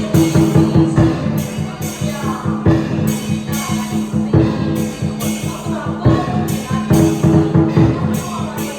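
Chinese dragon dance percussion: drum beats with repeated cymbal crashes about once a second, over a sustained low ringing.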